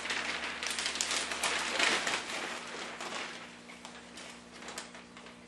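Newspaper pages rustling and crackling as they are handled and turned, loudest in the first two or three seconds, then dying down to a few faint crinkles.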